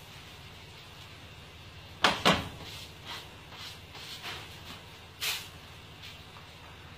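Kitchen utensils knocking on a prep counter: two sharp knocks a quarter second apart, a few lighter taps, and another knock a little past five seconds, over a steady low hum.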